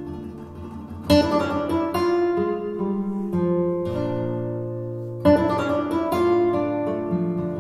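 Flamenco-style acoustic guitar music: strummed chords with sharp attacks about a second in and again a little past five seconds, ringing out and fading between them.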